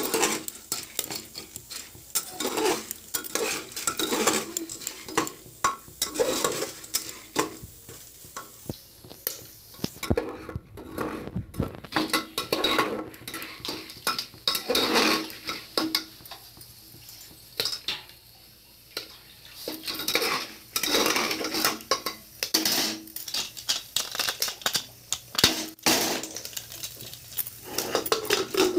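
A metal ladle stirring corn kernels around an aluminium pressure-cooker pot, scraping the metal and setting the dry kernels rattling, with irregular clinks and scrapes and a couple of brief pauses.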